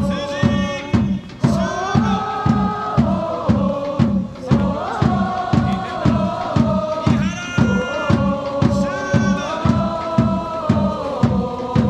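Football supporters chanting in unison over a steady bass drum beat of about three hits a second, the voices holding long sung notes.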